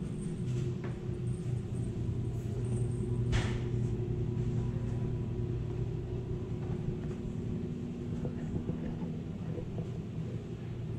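A steady low hum made of a few held tones, with a single sharp click a little over three seconds in.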